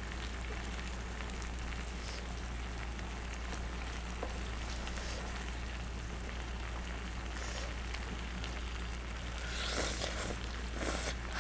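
Creamy milk-based pasta sauce simmering in an electric grill pan, a steady sizzling, bubbling hiss. About ten seconds in, a few louder mouth sounds as a spoonful of pasta is eaten.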